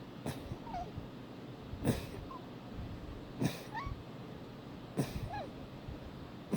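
A fit of short, sharp sneezes in a steady run, about one every second and a half, five in all, the last right at the end. Each sneeze is followed a moment later by a faint brief squeak.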